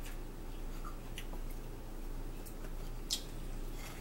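Forks clicking and scraping lightly on plates as pancakes are cut, with small eating sounds. One sharper click comes about three seconds in, over a steady low electrical hum.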